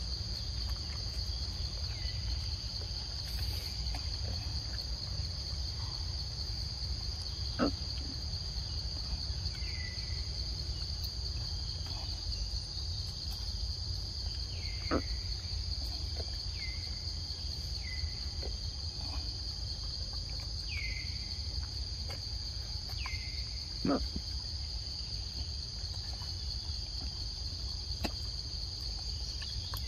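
Insects droning steadily at one high pitch, over a low steady rumble. Short falling chirps come every few seconds in the second half, and three sharp clicks stand out, about eight, fifteen and twenty-four seconds in.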